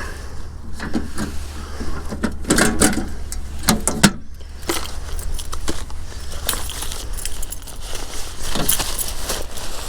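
Handling noise: irregular clicks, knocks and jingling rattles, like keys and small metal parts being handled, over a steady low hum.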